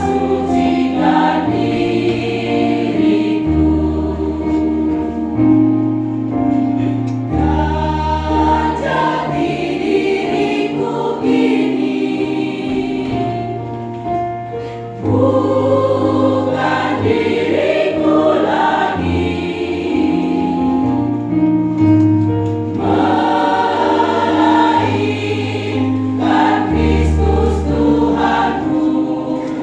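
Church choir singing a hymn in several parts, with sustained chords over a low accompanying bass line.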